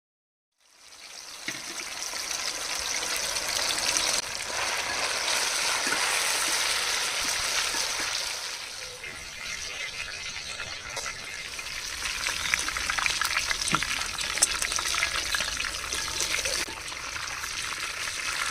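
Sliced onions frying in hot oil in a pan, a steady sizzle full of fine crackles that starts about half a second in.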